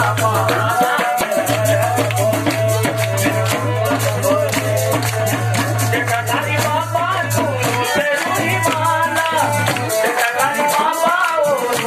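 Live bhajan music: harmonium and singing over a fast dholak hand-drum beat, with jingling, rattling percussion.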